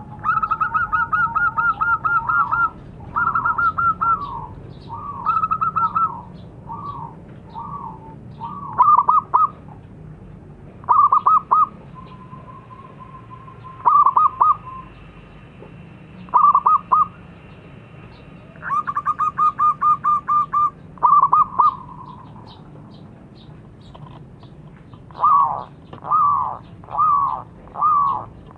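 Zebra dove (perkutut) cooing in phrases of quick, rolling staccato notes, with short pauses between phrases, over a faint steady low hum.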